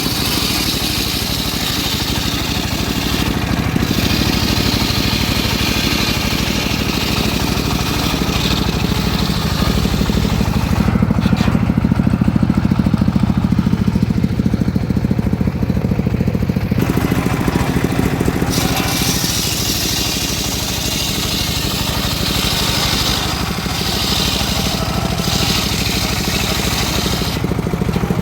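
Engine-driven homemade circular saw mill running steadily, its blade ripping through a teak log. The cutting hiss cuts out for several seconds in the middle, leaving the engine and blade running on their own, then comes back.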